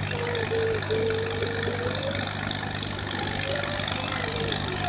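1953 Case DC tractor engine running steadily under load as it drags a weight-transfer pulling sled, with a thin wavering tone above the low engine sound.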